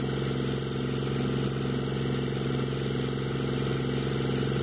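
Fiat 480 tractor's diesel engine running steadily under load, driving a water pump that has not yet drawn water.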